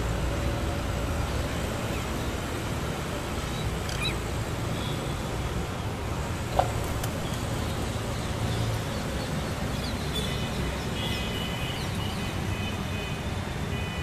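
Steady low rumble of road traffic, with short bird calls about four seconds in and a run of repeated high chirping calls near the end. A single sharp click a little past the middle is the loudest moment.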